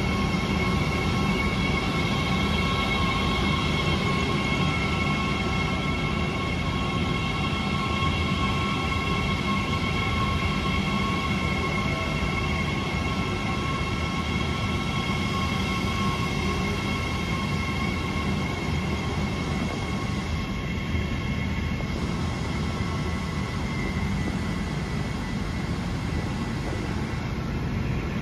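New Intercity Fleet (Mariyung) double-deck electric train running slowly along a platform: a steady electrical whine of several high tones over a low rumble. The whine fades a little towards the end.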